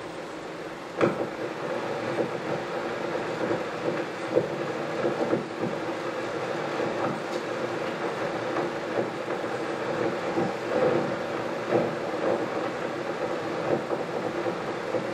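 Elmo 16mm film projector running: a steady mechanical hum and clatter with irregular pops and clicks scattered through it. It gets louder with a sharp click about a second in.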